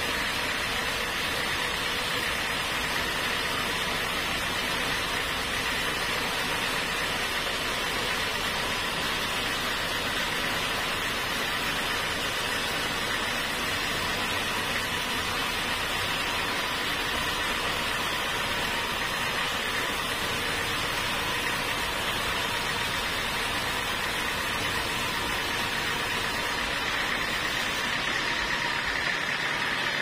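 Band sawmill running steadily as it saws a large mahogany log into planks: an even, unbroken machine noise with a few constant tones.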